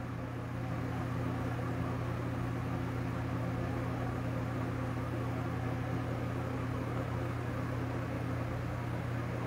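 A steady low hum with an even hiss behind it, unchanging throughout: background room or appliance noise.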